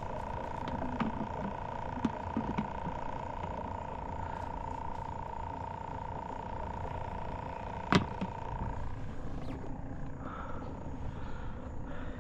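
Wind buffeting the microphone, with a steady high-pitched hum underneath that cuts off near the end. A single sharp click comes just before the hum stops.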